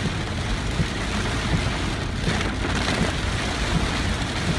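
Heavy tropical-storm rain falling on a car, heard from inside the cabin as a steady hiss over a low rumble, with a brief swell about halfway through.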